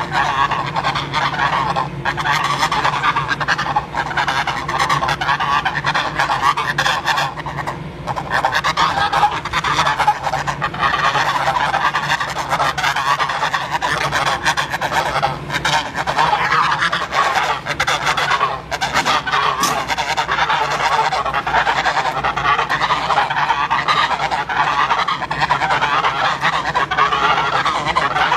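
A flock of geese honking continuously, many overlapping calls at once.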